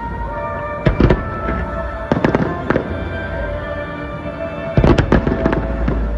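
Aerial firework shells bursting in quick clusters of bangs, about a second in, around two to three seconds in, and again near five seconds in, with steady music playing underneath.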